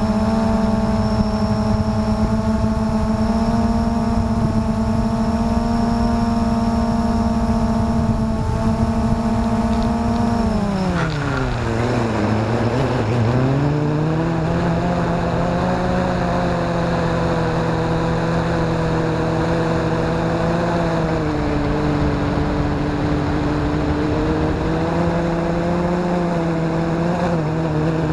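Blade 350 QX2 quadcopter's electric motors and propellers buzzing in flight, heard from the onboard camera. The steady hum drops sharply in pitch about ten seconds in as the motors slow, then holds at a lower, slightly wavering pitch, and dips again near the end.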